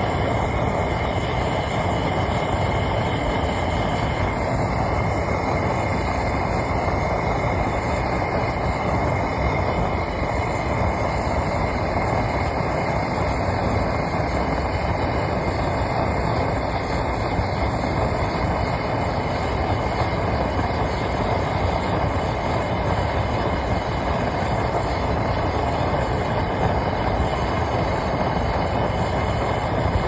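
Homemade metal-melting furnace running at full fire while melting aluminum scrap: the burner and flames make a loud, steady rushing noise that never lets up.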